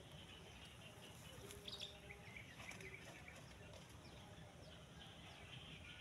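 Near silence: faint outdoor ambience with a few soft, high bird chirps, most of them about two seconds in.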